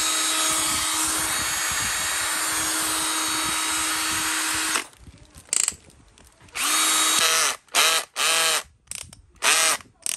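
Panasonic EZ7960 18 V cordless hammer drill running with no load at steady full speed for about five seconds. It then stops and is blipped in a quick string of short trigger pulls, each spinning up and winding down.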